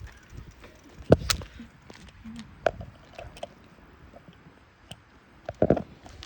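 Scattered short clicks and knocks over a quiet background, a sharp one about a second in and a cluster of louder knocks near the end.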